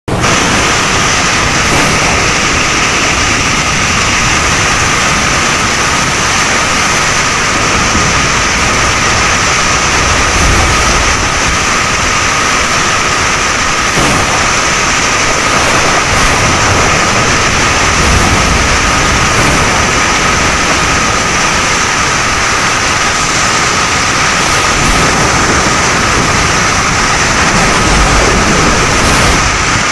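Heavy tropical downpour with strong gusting wind: a loud, steady rushing of rain and wind, with a thin steady whine underneath.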